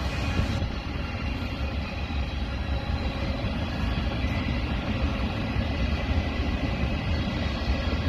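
CN freight train of tank cars rolling past, a steady rumble of steel wheels on the rails.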